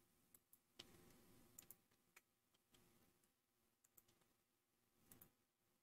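Near silence with a few faint, scattered clicks of a computer keyboard and mouse.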